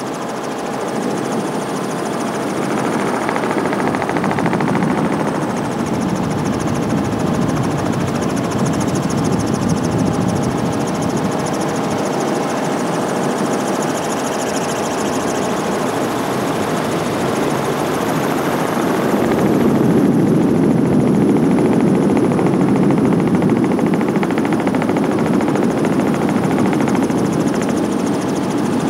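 Helicopter running steadily, heard from on board: a continuous rotor and engine roar with a thin high whine above it. It swells louder about twenty seconds in.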